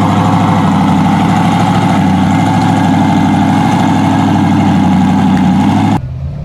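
Formula Offroad street-legal class buggy's engine idling loudly and steadily. Near the end the sound cuts abruptly to a quieter engine.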